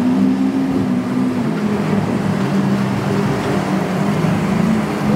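Motorboat engine running under a wash of water and wind noise. Its pitch drops about a second and a half in, then holds steady.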